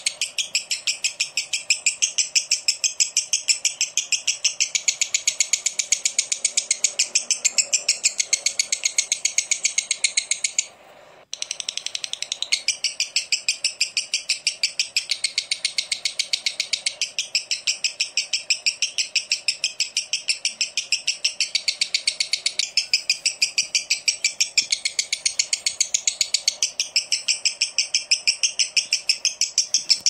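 Lovebird ngekek: a long, unbroken chattering trill of rapid, high, clicky notes repeated several times a second, with one brief break about eleven seconds in.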